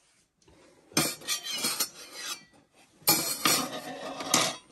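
Small stainless-steel toy pots, pans and utensils clattering on a wooden play-kitchen stovetop as a toddler handles them: two bursts of clinks and knocks, about a second in and about three seconds in.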